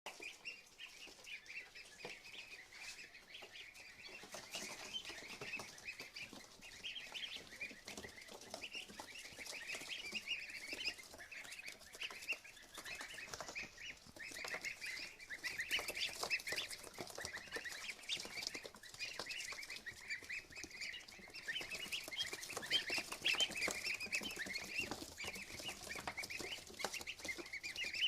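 A box of ducklings peeping continuously: many short, high calls overlapping, growing louder and busier about halfway through.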